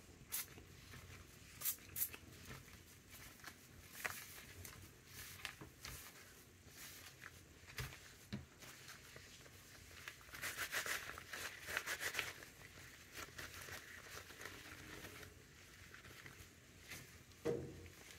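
Faint rustling and squishing of damp, ink-sprayed seam binding ribbon being scrunched into a ball in rubber-gloved hands to crinkle it, loudest about ten to twelve seconds in. A few short faint hisses and clicks come near the start.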